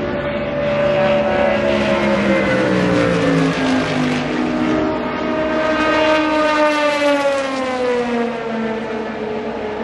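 Prototype race cars passing one after another at high revs. Each engine note drops in pitch as the car goes by, one a few seconds in and another through the second half.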